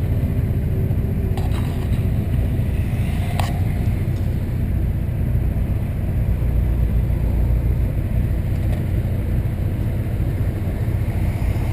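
VW Santana's 2.0 AP inline-four engine running at a steady, even pace as the car drives, a low rumble with no revving. Two faint clicks come about one and a half and three and a half seconds in.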